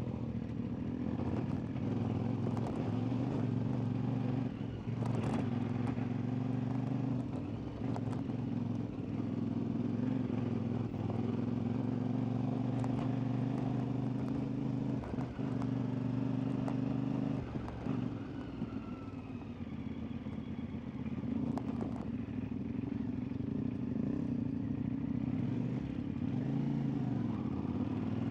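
CFMoto 450MT's parallel-twin engine running at a steady pace while riding, with a few sharp knocks and clicks scattered through, and a short easing of the engine about two-thirds of the way in.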